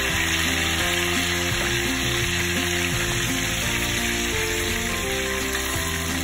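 Whole tilapia sizzling steadily as they shallow-fry in hot coconut oil, with a wooden spatula moving among the fish in the pan. Background music plays underneath.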